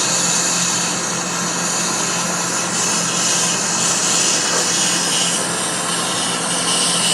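Brazing torch flame hissing steadily as it heats a compressor's refrigerant line joint to melt the solder, with a low steady hum underneath.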